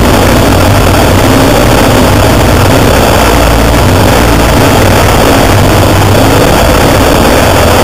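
Off-road racing vehicle engine running, loud and steady under a dense rushing noise.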